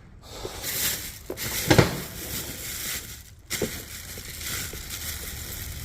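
Handling noise from tractor mirror parts being moved about: irregular scraping, rustling and light knocks, with a sharper knock about two seconds in.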